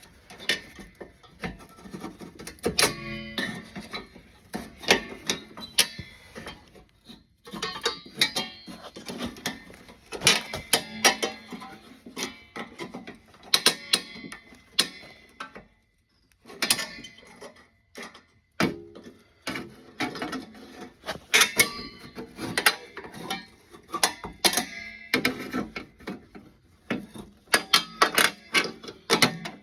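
Pliers working the exhaust springs off a snowmobile's exhaust pipe: an irregular run of metal clicks, clinks and scrapes, some springs ringing briefly, with a few short pauses. The springs are stiff and hard to get off.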